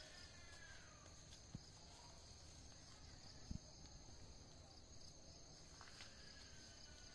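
Faint, steady high-pitched drone of insects, with a faint falling call near the start and another near the end, and two soft low thumps.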